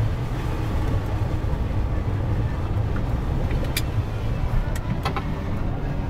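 Steady low rumble of a Mercedes-Benz Actros truck's engine and road noise, heard inside the cab on a downhill run. A few sharp clicks come in about four and five seconds in.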